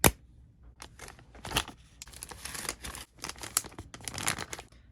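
One sharp knock, then a run of crinkling, rustling and scraping as plastic toy pieces and packaging are handled and put away.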